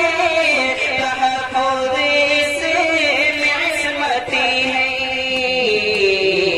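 A man singing a sehra, an Urdu wedding song, into a microphone: long drawn-out notes without clear words, the melody stepping down in pitch and climbing back near the end.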